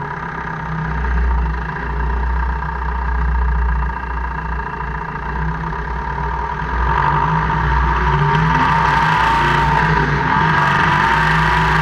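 2002 Jeep Cherokee KJ driving, its engine and drivetrain running steadily and growing louder about seven seconds in. This is the gear-grinding and clicking drivetrain noise that the owner hears only in four-wheel drive (4H or 4L), with the cause still unknown.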